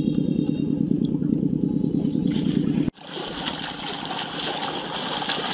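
A small engine running with a steady low, rapidly pulsing rumble that cuts off abruptly about three seconds in, giving way to a quieter, even outdoor hiss.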